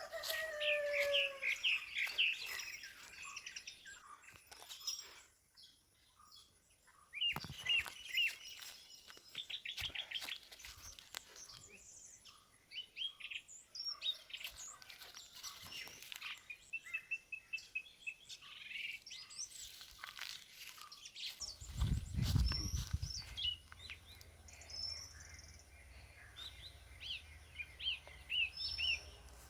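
Small birds chirping and calling with short, high, repeated notes and trills throughout. A brief low rumble comes about two-thirds of the way through.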